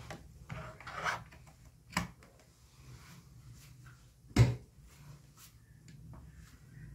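Clicks and knocks from a laptop being handled on a table. The loudest is a sharp knock about four seconds in, and a faint click near the end comes as the laptop's power button is pressed.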